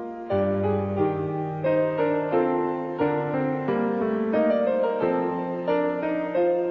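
Instrumental opening theme music: a melody of held notes changing about every half second, with deep bass notes coming in just after the start.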